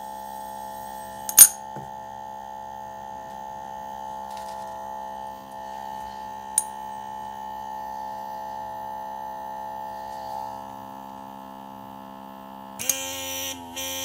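Replacement 12 V DC micro air pump in a nebulizing essential-oil diffuser running with a steady hum. A sharp clink comes about a second and a half in, and a small click near the middle. Near the end the hum changes pitch and a louder hiss pulses on and off as the glass nebulizer is lifted off.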